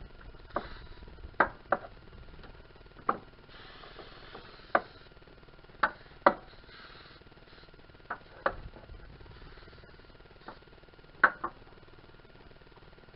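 Irregular sharp clicks and knocks of parts and hand tools being handled in a car's engine bay, about a dozen in all, with a brief hiss about four seconds in.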